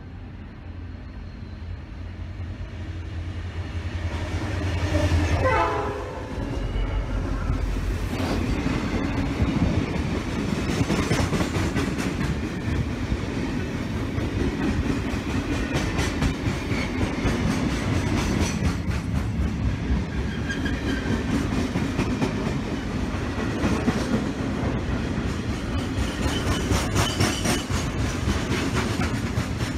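Two diesel-electric freight locomotives, an XR class and a G class, approach with a rising engine drone and pass about five seconds in. A long string of loaded steel-coil wagons follows, rolling by with a steady wheel rumble and clickety-clack over the rail joints.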